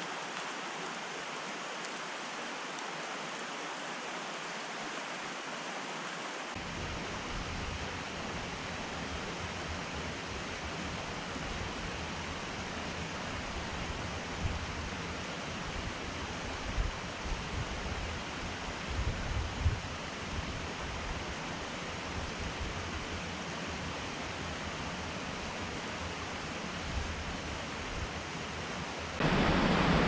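Small creek running over rocks, a steady rush of water. From a few seconds in, low irregular rumbling bumps on the microphone join it, a few of them louder in the middle.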